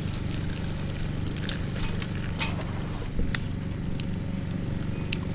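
Hot water trickling from a small pot into a paper coffee filter set in a plastic cup, with scattered light clicks and rustles as the wet filter is handled. A steady low hum runs underneath.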